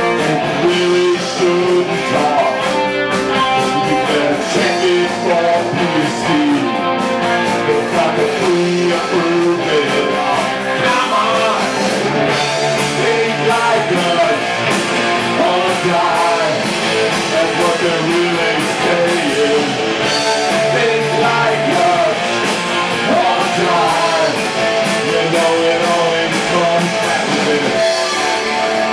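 A small rock band playing live, with electric guitars to the fore.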